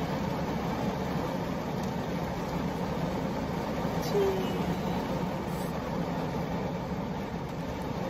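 Heavy rain falling steadily on a parked car's roof and windows, heard from inside the cabin as an even hiss.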